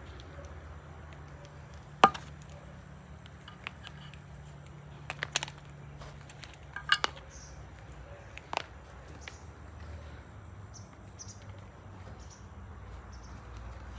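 Handling noise: a few sharp clicks and taps as a circuit board, loudspeaker and wires are picked up and set down on a concrete ledge, the loudest about two seconds in. Faint bird chirps sound in the background.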